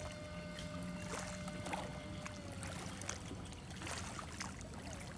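Model seaplane's motor whining steadily, then dropping slightly in pitch about halfway through, with scattered light splashes of water.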